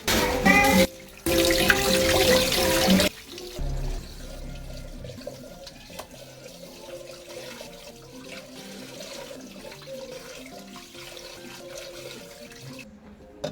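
Background music, with a loud hissing rush over about the first three seconds that cuts off suddenly.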